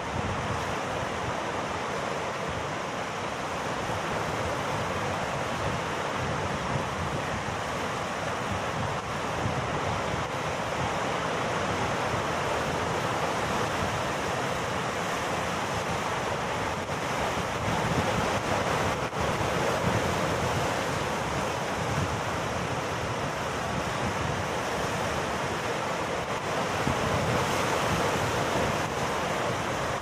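Sea surf breaking and washing around rocks in a rough sea: a steady rush of waves that swells a little louder now and then.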